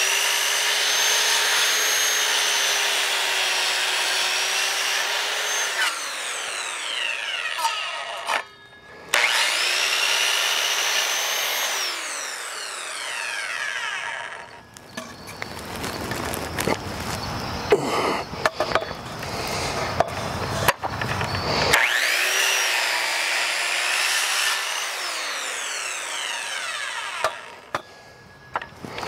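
Corded Ryobi 7-1/4-inch circular saw cutting a treated 4x4 post in three runs. Each time the motor comes up to speed with a steady whine that sags a little as the blade bites, then winds down with a falling whine when the trigger is released. Between the second and third runs there is a stretch of rough scraping noise with sharp knocks.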